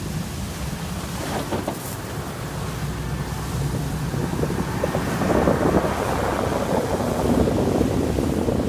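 A car driving over a slushy, snow-covered road, heard from inside the car: low engine rumble with the hiss and crackle of tyres through slush, growing louder over the second half.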